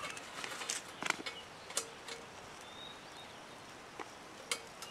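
A few scattered sharp clicks and taps from handling around a folding steel wood-burning camp stove and its hot coals, over a faint outdoor background, with a brief thin whistle near the middle.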